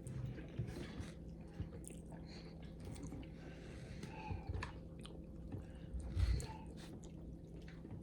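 A person chewing food close to the microphone, with soft wet mouth clicks, and a dull low thump about six seconds in.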